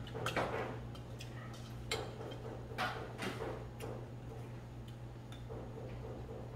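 Irregular light clicks and clinks of tableware being handled at a dining table, over a steady low hum.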